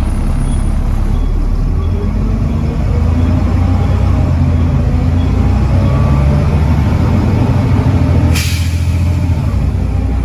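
Volvo D7C 7.3-litre diesel engine of a double-decker bus running under load, getting louder about two and a half seconds in. A short, sharp hiss of compressed air from the air brakes comes near the end.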